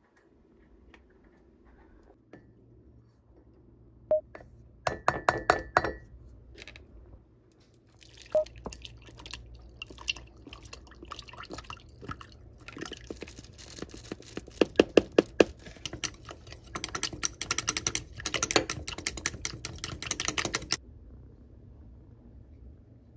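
Kitchen handling sounds of mixing a protein drink in a glass mug: a short clatter, then almond milk poured from a carton into the glass, then a utensil stirring and clinking rapidly against the glass for several seconds, stopping abruptly about two seconds before the end.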